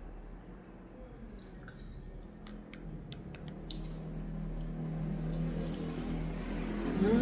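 Eating sounds: scattered light clicks of a fork against a plastic food container and a glass bowl, with chewing. Under them runs a low hum that grows louder over the second half.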